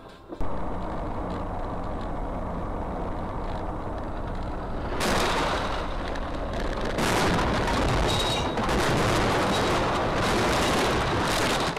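Dashcam audio of a vehicle on the road: steady engine and road noise, then from about five seconds in a loud rushing noise with crackling, clattering bursts, as in a crash.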